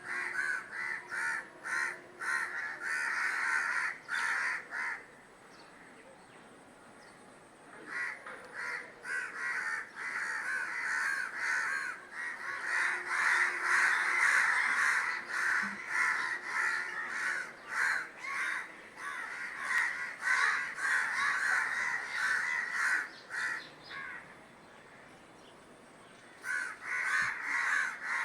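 Many crows cawing at once in dense, overlapping calls. The calling drops away for a few seconds twice, then starts up again.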